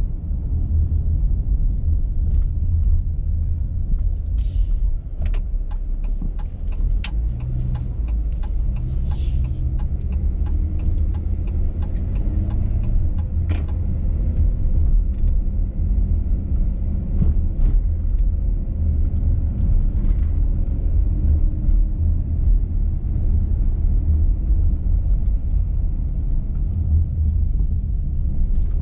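Car driving at low speed: a steady low rumble of engine and road noise. About four seconds in comes a run of sharp clicks and rattles that lasts roughly ten seconds.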